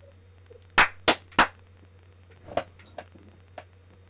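Three sharp hand claps about a third of a second apart, followed by a few fainter taps.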